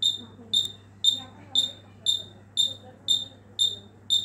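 Warning buzzer of a 5 kV high-voltage breakdown tester beeping about twice a second in short, high-pitched beeps while test voltage is applied during a timed insulation test. It signals that high voltage is on at the test leads; the beeping stops when the timed test ends.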